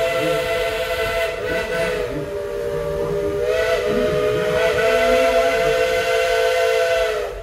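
Steam locomotive whistle blowing one long blast, a chord of several steady tones that steps slightly up in pitch about halfway through and cuts off sharply near the end.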